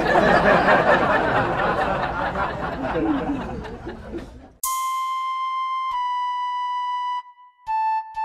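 A dense, muffled noise that cuts off abruptly about four and a half seconds in. Then an electronic keyboard plays slow single held notes, one after another.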